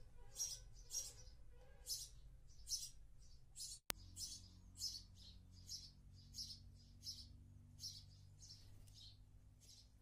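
House sparrow chirping: a steady series of short, high cheeps, a little more than one a second. A single sharp click cuts in about four seconds in.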